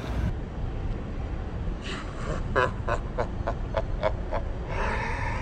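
A woman laughing in a quick run of short bursts, ending in a longer high-pitched squeal of laughter near the end, over steady low background noise.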